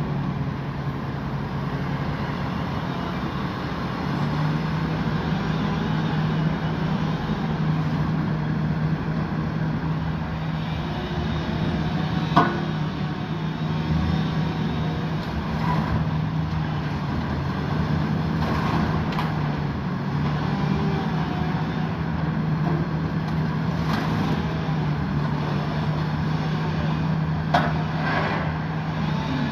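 Grab excavator's engine running steadily, with a sharp clank about twelve seconds in and another near the end.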